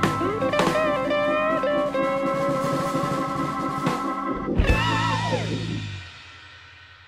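Rock music with guitar and drums, ending on a last hit about four and a half seconds in that rings out and fades away.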